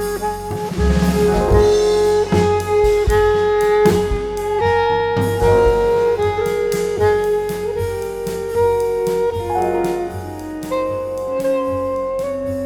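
Jazz background music: a saxophone-like lead playing held notes over bass, piano and a drum kit.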